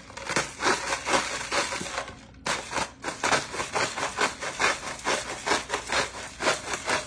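Kirkland Signature adjustable ceramic salt grinder twisted by hand, crushing pink salt crystals in a rapid run of crunching strokes, about three or four a second, with a brief pause about two and a half seconds in.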